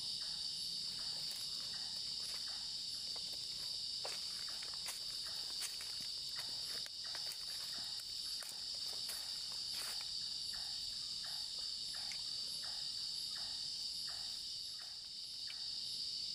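Steady chorus of crickets chirping. Footsteps tap along at walking pace, plainest in the second half.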